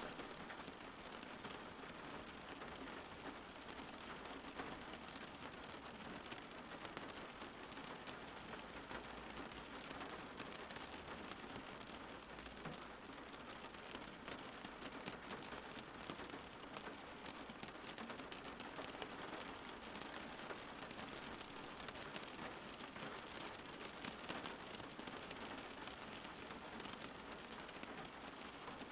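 Steady rain falling on a surface, a constant hiss of water with fine pattering drops.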